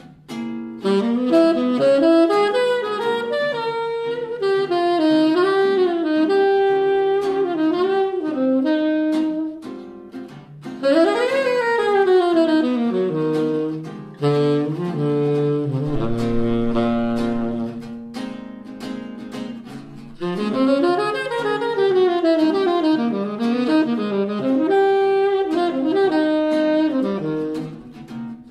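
Jazz duet of saxophone and acoustic archtop guitar: the saxophone plays a flowing melodic line in phrases with short breaths between them, over guitar chords.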